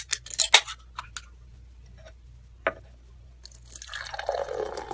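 Liquid sounds: a quick cluster of sharp drips and splashes, a few single drops, then liquid pouring in a stream from about three and a half seconds in.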